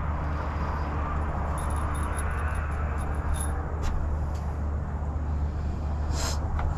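A steady low background hum with a few light clicks and taps from handwork on the deck boards.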